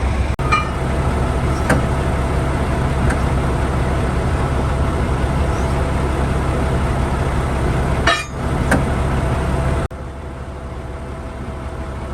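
Heavy diesel engine running steadily with a low drone, with a few short clicks. The sound breaks off abruptly a few times and carries on quieter from about ten seconds in.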